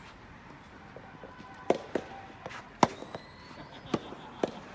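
Racket hits during a doubles rally: a run of sharp, short strikes, five in all, irregularly spaced about half a second to a second apart, the loudest in the middle.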